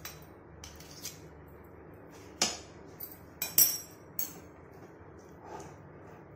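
Steel spoon clinking and tapping against the metal kadai several times as lumps of ghee are knocked off it into the biscuit mixture. The sharpest clinks fall about two and a half to four seconds in.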